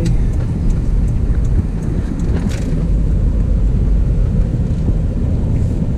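Steady low rumble of a vehicle's engine and tyres, heard from inside the cab while driving.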